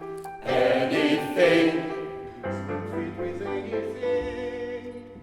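A group of voices singing together with piano accompaniment, loudest in a full passage in the first two seconds, then continuing more softly over sustained low piano notes.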